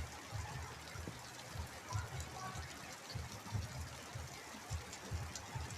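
Rain and water trickling and dripping through a leaking coop roof, with gusty wind buffeting the microphone in irregular low thumps.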